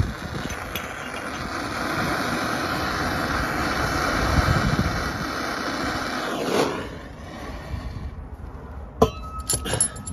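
Handheld gas blowtorch flame hissing steadily while heating a rear brake hose fitting to burn off perished rubber that is jamming the nut; it cuts off about six and a half seconds in. A few sharp metallic clinks follow near the end.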